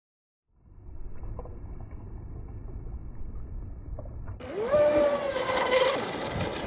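Traxxas M41 RC boat's brushless electric motor whining, its pitch rising, holding and then dropping with the throttle, over a low rumble and hiss of wind and water that fades in after a moment of silence.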